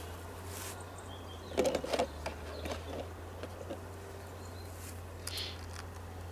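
A cluster of sharp clicks and a short rattle of small metal tools and parts being handled, about one and a half seconds in, then a few lighter clicks, over a steady low hum.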